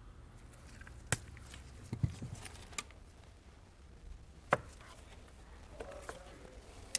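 Sharp clicks and snaps of a hand wire stripper-crimper tool trimming a wire and crimping butt connectors. There are a handful of separate clicks: one about a second in, a quick cluster around two seconds, and the loudest about four and a half seconds in.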